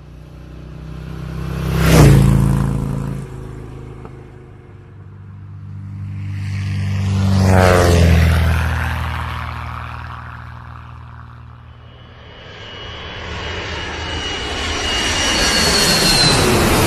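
Aircraft flying past three times, each pass swelling up and fading away with a falling pitch. The first, about two seconds in, is short and sharp. The second, near the middle, sweeps down with a shimmering, flanging sound. The last builds slowly with a high whine near the end.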